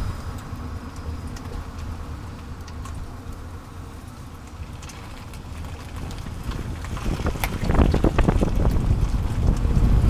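Road, tyre and wind noise beneath a moving 30-series Toyota Prius, picked up by a camera mounted under the car, with scattered sharp clicks and knocks from the underbody. The noise drops to its quietest about four seconds in and builds again, with denser clicks after about seven seconds, as the car slows and then speeds up.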